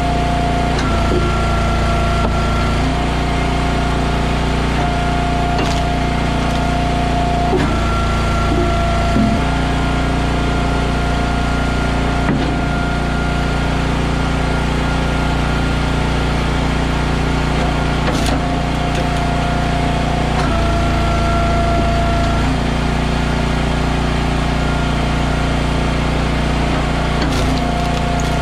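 Eastonmade AXIS wood splitter's engine running steadily, its tone shifting every few seconds as the ram cycles through rounds of hardwood. A few short cracks come from wood splitting.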